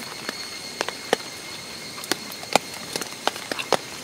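Scattered raindrops ticking irregularly on a tent or tarp over a steady hiss of rain, a few drops landing much harder than the rest.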